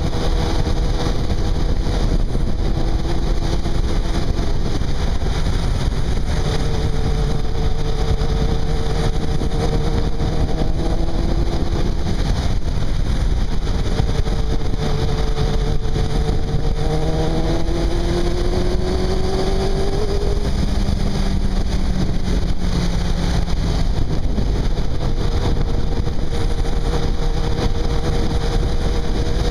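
Yamaha YZF600 sport bike's inline-four engine running at road speed while riding, with heavy wind rush on the mount-fixed camera microphone. The engine note rises twice as the bike accelerates, each time dropping back down.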